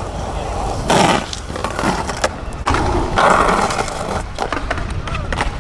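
Skateboard wheels rolling on concrete, with two loud scrapes, one about a second in and a longer one from near the three-second mark, as the board grinds along the edge of a concrete ledge.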